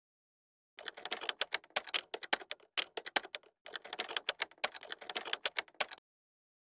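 Typewriter key clicks as a sound effect, rapid and uneven, in two runs. The second run starts after a brief pause about halfway through.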